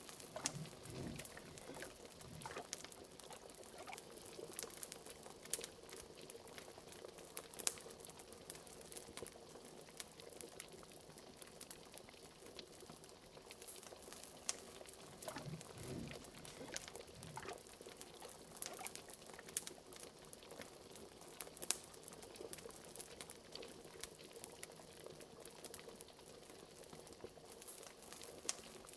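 Liquid bubbling and gurgling in a cauldron, with a few deeper bloops now and then, over a wood fire crackling in small sharp pops. A faint steady hum lies underneath.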